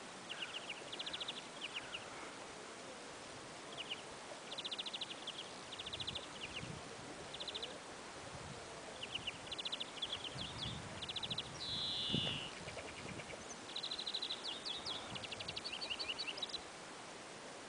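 Small birds chirping outdoors: many short, fast, high trills in quick bursts, with a call that slides downward about twelve seconds in. A few soft low rumbles sit underneath.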